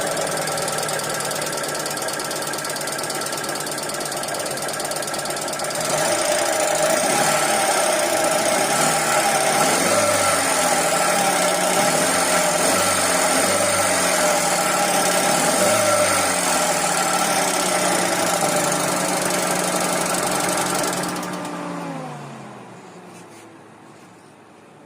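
2012 Hyundai Accent's engine running with a very bad, abnormal noise. It gets louder about six seconds in, and is switched off near the end, its note falling as it runs down. The mechanic afterwards finds worn bearings in the belt-driven accessories, one of them a motor's.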